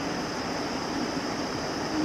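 Steady rush of water pouring into a pond, with a faint steady high tone over it.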